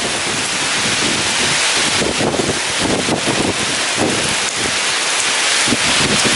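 Heavy rain falling hard, with strong gusty wind surging underneath in uneven waves.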